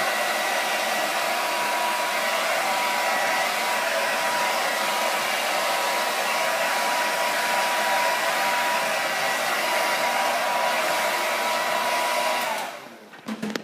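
Handheld hair dryer blowing steadily with a thin whine, drying a paint top coat over crackle glaze so that the finish cracks. It is switched off near the end, followed by a couple of light knocks.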